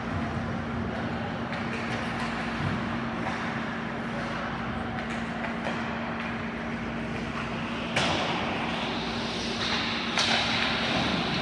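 Ice hockey rink sound during play: a steady arena hum under scraping and clatter on the ice, with two sharp cracks about eight and ten seconds in.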